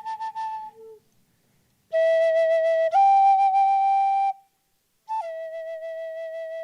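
Flute playing a slow prayer song in long held notes with a slight waver. One note ends about a second in; after a pause a lower note steps up near three seconds and stops; after another pause a note drops to a lower pitch and is held.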